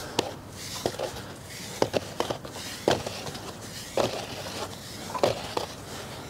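Scattered light knocks and scuffs, about one a second, over a faint background hiss.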